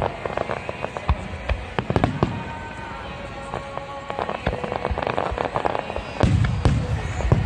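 Fireworks display: aerial shells bursting with a rapid run of crackles and bangs, then a cluster of heavier, deeper booms about six seconds in.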